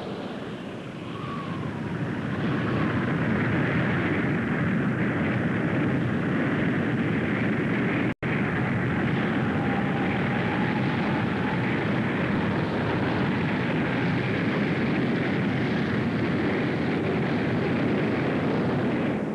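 Steady rushing roar of a tornado's wind, building over the first couple of seconds, cutting out for an instant about eight seconds in, then holding steady.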